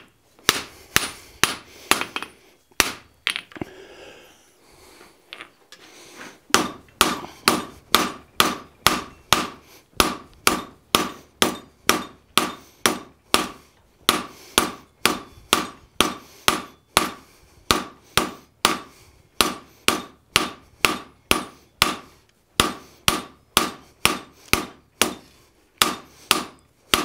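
Blacksmith's hand hammer striking a hot steel bar over the anvil horn, drawing it out to a long tapered point: a steady run of ringing blows, about two to three a second. The hammering stops for a few seconds about three seconds in, then resumes.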